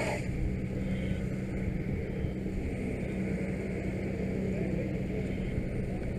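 Fire engine's diesel engine running steadily, a low, even hum while it drives the pump feeding the bumper hose line.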